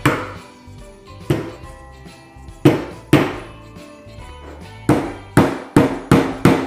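Hammer tapping small nails into a wooden board: a few single strikes spaced a second or more apart, then a quicker run of about five strikes near the end. Background music plays underneath.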